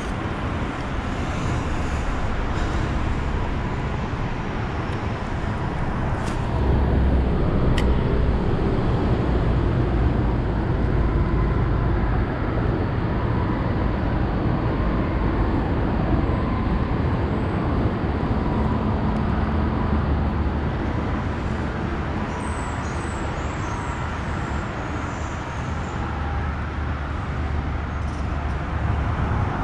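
Steady rumble of road traffic crossing the highway bridge overhead, swelling for a few seconds from about six seconds in. A couple of sharp clicks sound around six and eight seconds in.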